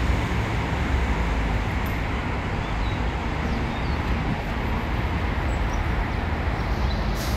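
Steady traffic and street noise, a low even rumble of road vehicles with no single engine standing out.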